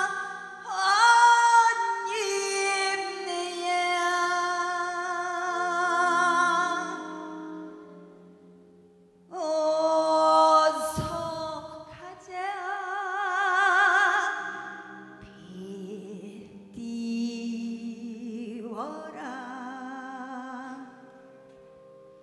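A woman singing a Korean song in traditional folk style into a microphone: long held phrases with a wide, wavering vibrato, over soft sustained chords from a wind band. The voice fades out near the end.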